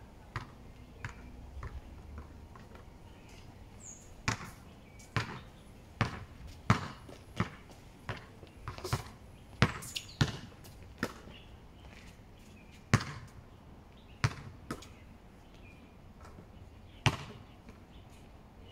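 A basketball bouncing on a hard outdoor court: a run of sharp, separate thuds at irregular intervals, some coming in quick twos and threes, with longer gaps between bounces in the second half.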